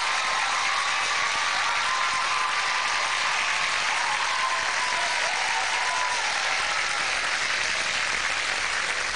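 Studio audience applauding steadily, with some faint wavering voices from the crowd mixed in.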